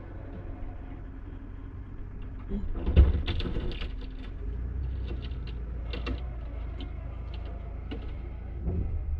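Vehicle running with a steady low rumble, over which come knocks and rattles: one sharp clunk about three seconds in and lighter clatters after it.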